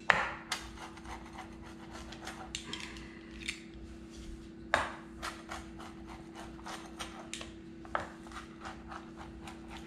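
A pizza cutter slicing through a crispy pizza crust on a wooden cutting board: a run of irregular crunches and scraping clicks, with sharp knocks right at the start and near the middle. A faint steady hum runs underneath.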